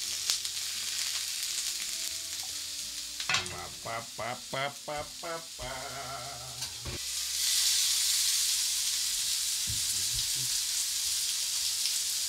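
Green peppers, red pepper strips and mushrooms sizzling as they fry in a nonstick pan, heard close up; the green peppers are tossed in at the start and the sizzle grows louder about halfway through. A man's voice briefly sings a few wavering notes a few seconds in.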